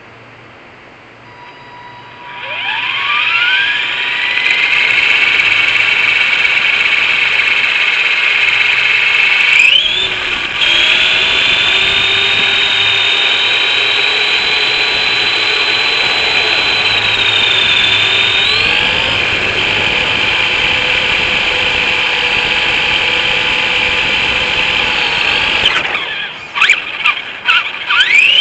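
Electric motor of an Arrma Typhon RC buggy whining. Its pitch glides up as the car accelerates a couple of seconds in, then holds at a steady high whine that breaks briefly and shifts around the middle. Several quick throttle blips come near the end.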